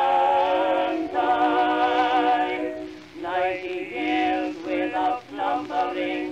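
Music with singing: long held sung notes with vibrato, a short break about three seconds in, then shorter notes that break off near the end.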